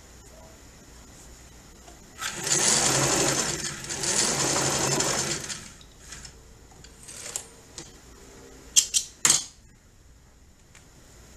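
Domestic straight-stitch sewing machine running as it stitches a seam, in two runs close together lasting about three and a half seconds, with a brief slowdown between them. A few sharp clicks follow near the end.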